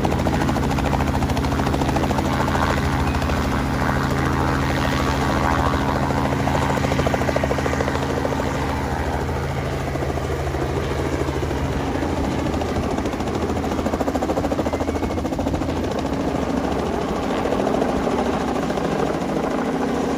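Helicopter taking off: engine and rotor running loud and steady, with a rapid beat of the blades. The engine's pitch pattern shifts about halfway through.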